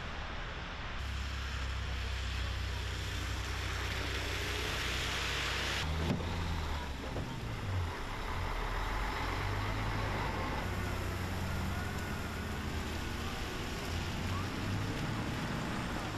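Car engines running in slow, snowbound street traffic: a steady low engine hum under a hiss of road noise. The sound changes abruptly about a second in and again about six seconds in.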